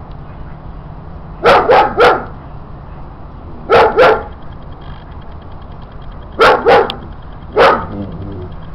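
A dog barking in short groups: three barks, then two, then two, then a single bark near the end.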